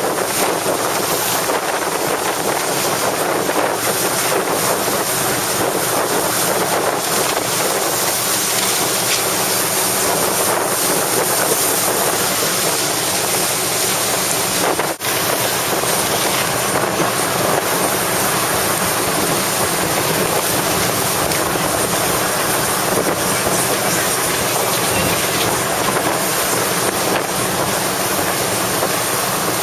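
Strong wind buffeting the microphone, a loud steady hiss, likely with water noise beneath it. It cuts out for an instant about halfway through.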